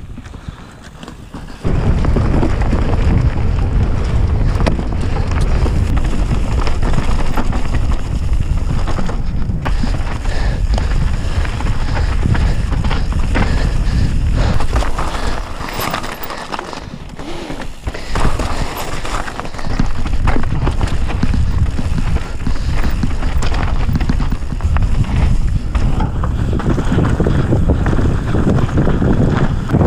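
Mountain bike ride recorded on an action camera: wind buffeting the microphone, with tyres on dirt and the bike rattling over bumps in many short knocks. It is quieter for the first second or two.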